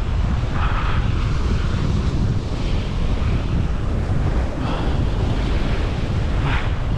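Wind buffeting the microphone with a heavy low rumble, while surf washes against the rocks in a few hissing surges about two seconds apart.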